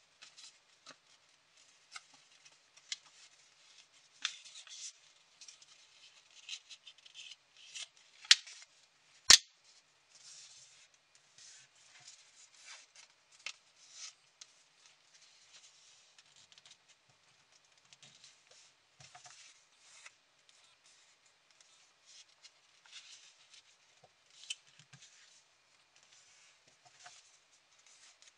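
A square of origami paper being folded and creased by hand: scattered dry crackles and rustles of the sheet, with two sharp clicks around eight and nine seconds in, the second the loudest.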